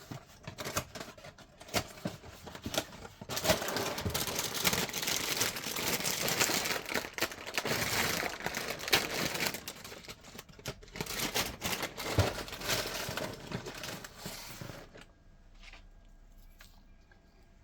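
Plastic cereal-box liner bag crinkling and tearing as it is opened and handled: a few scattered crackles, then several seconds of dense, continuous crinkling that stops near the end.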